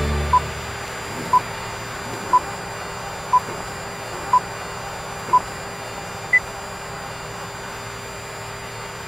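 Six short electronic beeps at one pitch, one a second, followed by a single higher beep a second later, over a faint steady hiss.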